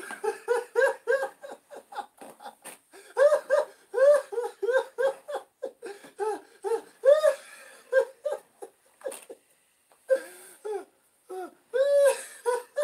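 High-pitched laughter from one voice: rapid runs of short, bouncing 'ha' syllables, with a brief pause about nine seconds in before the laughing picks up again.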